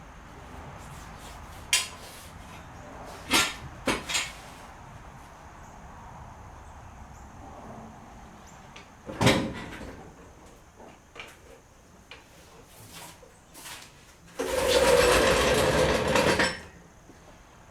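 Metal tools and parts clanking and knocking: a few sharp clinks in the first few seconds and a heavier knock about nine seconds in. Near the end comes a loud, harsh noise lasting about two seconds.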